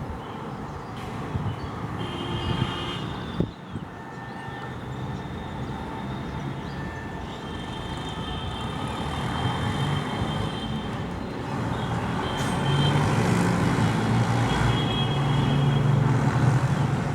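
Rumble of road or rail traffic, growing louder over the last few seconds, with a low engine-like hum and a few brief high tones over it.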